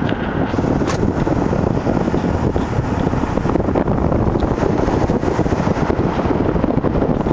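Wind buffeting the microphone of a camera filming from a moving car: a loud, steady, rumbling rush with a short tick about a second in.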